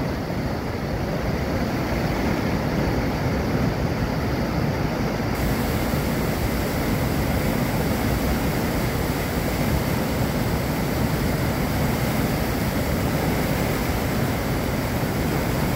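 Steady rushing of a flooded river pouring over a low dam and churning in the turbulent water below it, with the hiss growing brighter about five seconds in.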